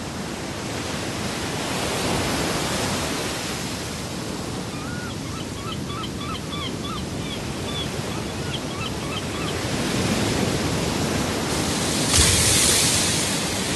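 Ocean surf washing against a rocky shore, a steady rush that swells and ebbs, with a wave crashing loudly about a second before the end. In the middle, a run of short high chirps sounds over the surf.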